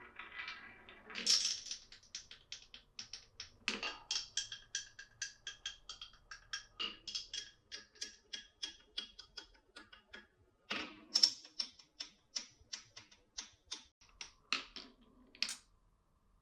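Marbles clicking and clattering along a wooden marble run, in a quick train of about five ticks a second with a faint bright ring, and louder knocks about a second in and again around eleven seconds. The clatter stops shortly before the end.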